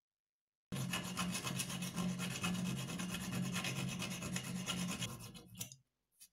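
A hand file rasping over a small steel part clamped in a bench vise, in quick back-and-forth strokes. It starts just under a second in and cuts off abruptly near the end, followed by a single small tick.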